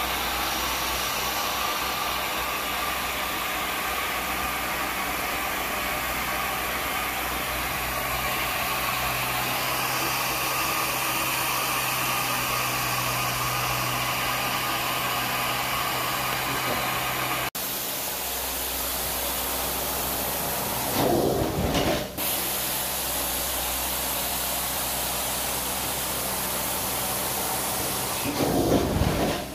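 Carpet extraction machine running steadily, a low hum under a hiss. Two brief louder rushes come in the second half, one of them near the end.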